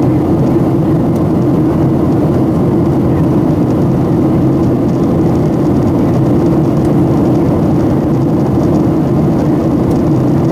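Steady cabin drone of a Boeing 737-700 in flight: its CFM56 jet engines and the air rushing past the fuselage, heard from inside the passenger cabin as an even, low roar with a steady hum.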